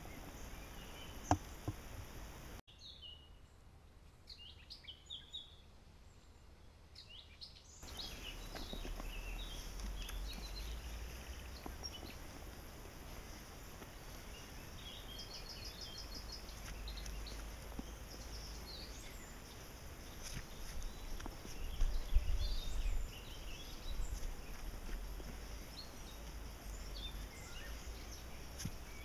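Outdoor ambience of birds chirping here and there, with a brief rapid trill about halfway through, over a low steady rumble that swells for a moment past the two-thirds mark.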